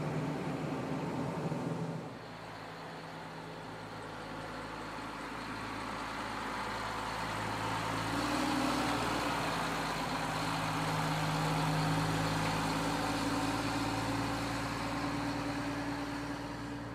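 LMTV military truck's diesel engine heard from outside as the truck drives past: a steady engine note that swells over several seconds, peaks about two-thirds of the way through and then fades. A louder stretch of engine sound cuts off abruptly about two seconds in.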